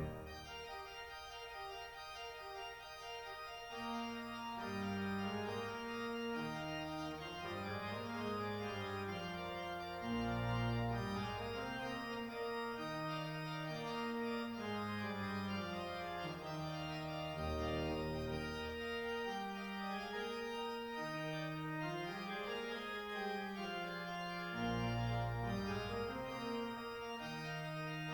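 Organ playing slow, held chords that step from note to note, with deep bass notes coming in several times.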